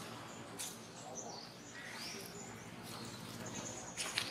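Birds chirping with short, high, curving whistles, over a faint low hum. There are a few sharp clicks, one near the start and two close together near the end.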